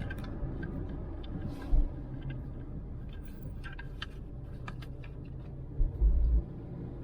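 Car cabin noise while driving: a steady low rumble of engine and tyres on the road, with a few faint ticks and two short low thumps, one near 2 seconds in and one near the end.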